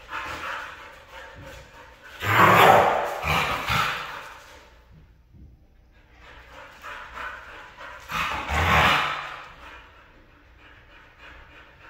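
Two Siberian huskies vocalizing at each other, with two loud bouts about two seconds in and again about eight seconds in, and softer sounds in between.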